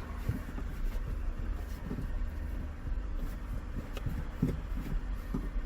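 Four-cylinder engine of a 2007 Nissan Frontier running at idle just after being started from long storage: a steady low rumble with scattered light knocks.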